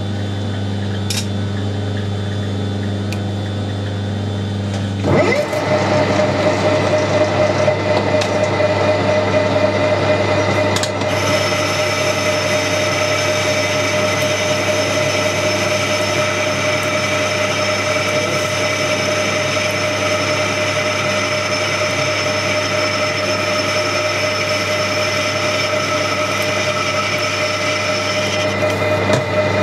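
Metal lathe boring out a hole in an aluminium disc with an insert-tipped boring bar. The motor hums steadily, and about five seconds in the tool starts cutting, adding a steady whine; a second, higher tone joins about eleven seconds in.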